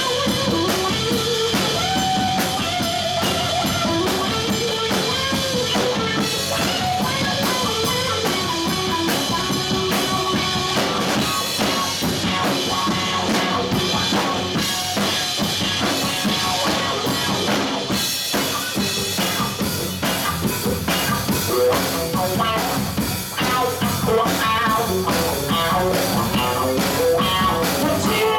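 Live band playing amplified rock music: electric guitar, bass guitar and a drum kit, with a woman singing into the microphone.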